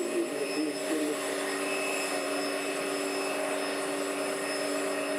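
Steady jet whine and hum of an Airbus A320-200 during pushback: several held tones with a high whistle above them, even throughout.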